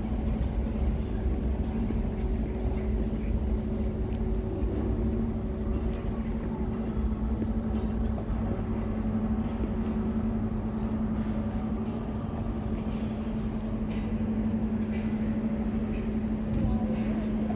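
Urban street ambience dominated by a steady, constant-pitched mechanical hum, like an idling engine or running machinery, over a low rumble, with a few faint clicks.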